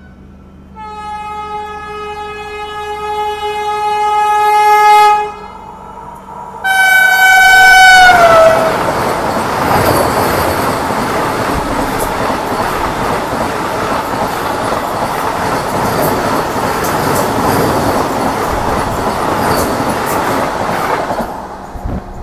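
Vande Bharat Express electric train passing close by. It sounds its horn in a long blast that grows louder as it approaches, then gives a second blast whose pitch drops as it goes by. The loud rushing clatter of its coaches passing alongside follows for about thirteen seconds and cuts off suddenly as the last coach clears.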